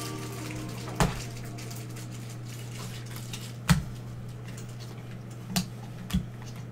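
Trading-card packs and cards being handled on a tabletop: four short sharp knocks as they are set down or tapped, the loudest about three and a half seconds in. A steady low electrical hum runs underneath.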